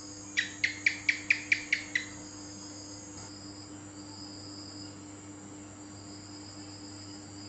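A lizard's call: a quick run of about eight sharp chirps in under two seconds, over a steady chorus of crickets.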